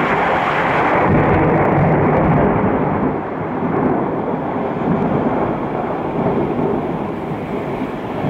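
Rolling thunder: a loud rumble that comes in suddenly, is strongest over the first few seconds and then slowly dies away.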